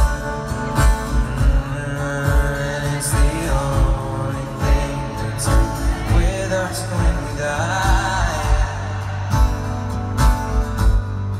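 Live acoustic-guitar pop music from a stadium PA, recorded from within the crowd: a singer-guitarist plays over a steady beat, with singing at times.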